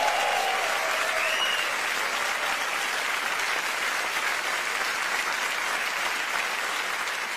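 Studio audience applauding steadily, slowly fading.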